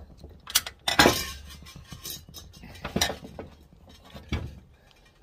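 Metal tools and small engine parts clinking and clattering as they are handled, a handful of sharp knocks with the loudest about a second in, followed by brief ringing.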